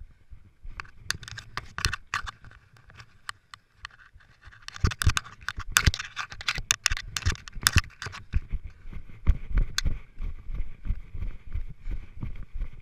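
Body-worn action camera and body scraping and knocking through loose dirt while crawling under a parked pickup truck, busiest in the middle. Near the end, footsteps running on grass.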